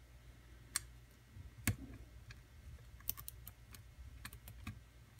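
Lock pick working the pins of a pin-tumbler challenge lock under light tension: faint, irregular metallic clicks, about a dozen, bunched together in the second half.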